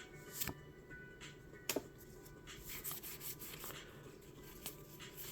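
Pokémon trading cards handled and slid over one another: soft rubbing with a few sharp clicks, the loudest about half a second and nearly two seconds in.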